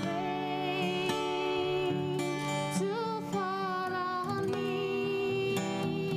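A woman singing a slow song live over acoustic guitar accompaniment, holding long notes. Her voice is muffled by the cloth face mask she is wearing.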